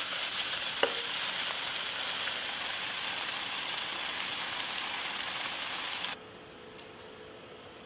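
Chicken livers, basil and chillies sizzling in a frying pan over a gas flame: a steady hiss with a single click about a second in. It cuts off suddenly about six seconds in, leaving a faint steady hum.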